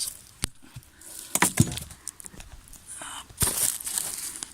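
Dry dead leaves rustling and crunching, with a few sharp crackles and knocks scattered through, as of someone moving about in deep leaf litter.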